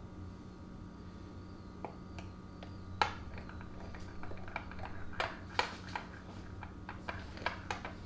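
A scattering of light clicks and clinks of small hard objects being handled and set down, over a low steady hum.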